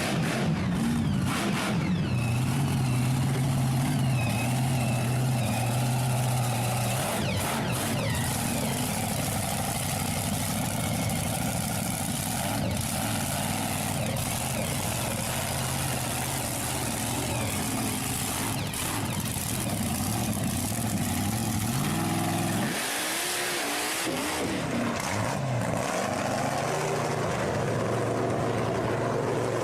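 Engine running and revving without pause, its pitch stepping up and down with a few rising and falling glides past the twenty-second mark, like a monster truck engine.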